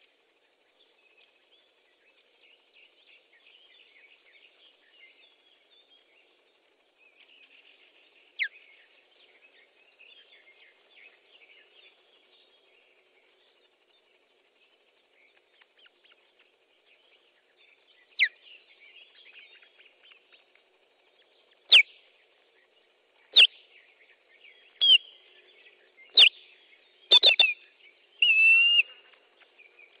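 Osprey alarm calls: loud, sharp whistled notes that slide down in pitch. Two come singly, then a quickening series of about six follows, the last one drawn out. They signal an intruder near the nest, and small birds chirp faintly underneath.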